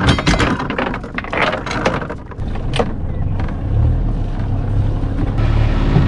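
A few sharp knocks and clatter of gear being handled, then, from about halfway, the steady low running drone of a small sailboat's inboard engine.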